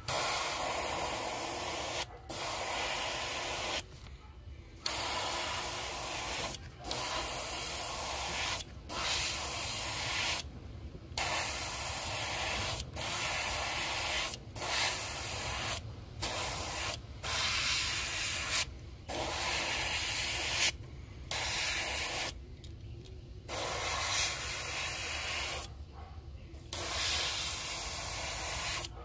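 Airbrush spraying opaque white paint in short bursts, the hiss starting and stopping every one to two seconds as the trigger is worked.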